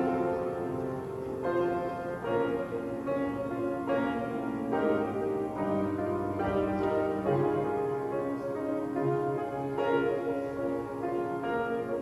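Instrumental music played on a keyboard instrument, a new chord about every second.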